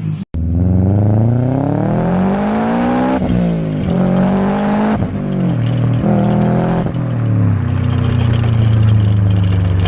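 Hyundai Genesis Coupe with a loud exhaust accelerating hard. The engine note climbs in pitch for about three seconds, then breaks at each gear change, several quick shifts in a row, and settles into a steady loud drone near the end.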